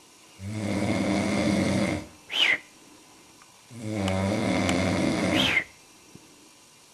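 A man snoring heavily: two long, low snores, each ending in a brief sharp sound that rises and falls in pitch, with quiet gaps between breaths.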